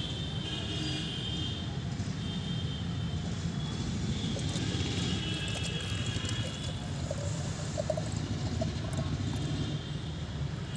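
Water poured from a plastic bottle into a plastic sipper bottle, over a steady low rumble.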